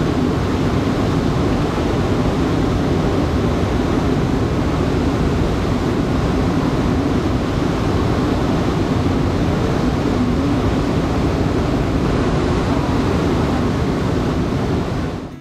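Steady rushing of white-water rapids below a waterfall. The river is running full and strong, swollen by rainy-season rains.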